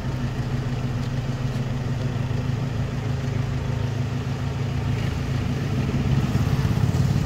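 Vehicle engine idling with a steady low hum that grows a little louder near the end.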